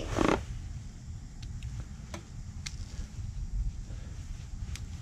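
Light, sharp metal clicks from a small pick working at a snap ring inside a control arm's joint housing, trying to pry it out, over a low steady rumble. A brief louder rustle at the very start.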